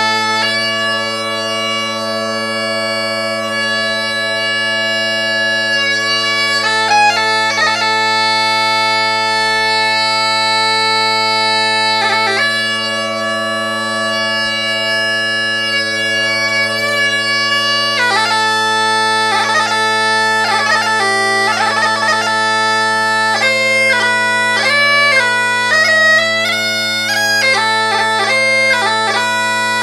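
Great Highland bagpipes, a cheap eBay set fitted with new drone reeds, playing: the drones hold a steady bass under the chanter. The chanter holds long notes through the first twelve seconds or so, while one drone is being tuned by hand, and plays a run of changing notes through the second half.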